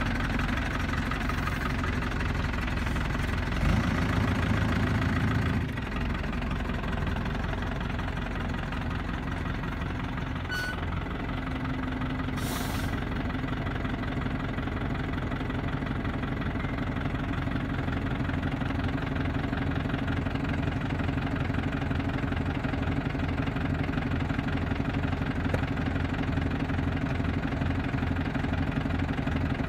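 A 1999 Iveco-Ford 75E14 lorry's four-cylinder diesel engine idling with an even throb. It runs louder for a couple of seconds about four seconds in, then settles back to a steady idle.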